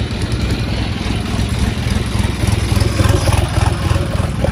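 Vehicle engine running steadily, its low firing beat pulsing evenly.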